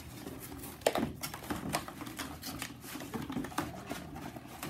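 Cardboard produce boxes being folded into shape by hand: a quick, irregular run of taps, creases and knocks as flaps are bent and pushed into place, with one sharper knock about a second in.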